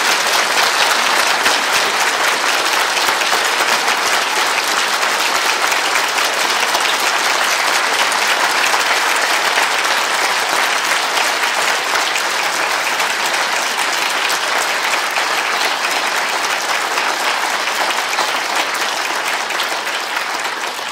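Large lecture-theatre audience applauding steadily for about twenty seconds, dying away at the end.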